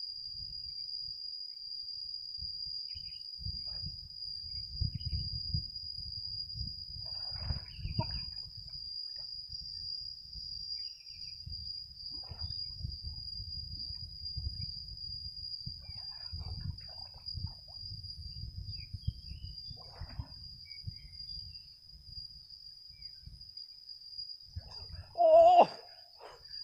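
A steady high insect trill over low wind rumble on the microphone, with a few faint brief sounds, at a pond where a swimmer is under water. Near the end comes a short loud burst as the swimmer surfaces.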